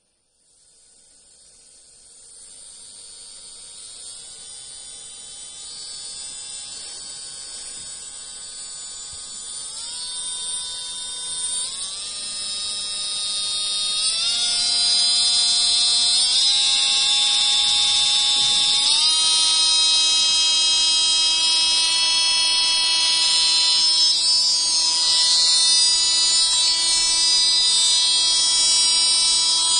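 Rechargeable electric nail drill motor whining, switched on and stepped up through its speed settings. Its pitch jumps up about six times and it grows louder, then runs steady for the last ten seconds or so.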